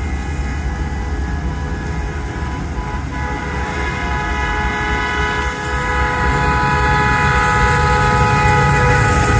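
Horn of a ZCU diesel locomotive on an express train approaching at full speed: a held multi-note chord that swells from faint to loud over the last six seconds, over a low rumble.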